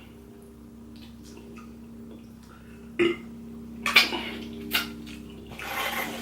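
Eating seafood by hand: a few sharp cracks and clicks, about three seconds in and again around four seconds, with a noisy stretch of handling and chewing near the end, over a steady low hum.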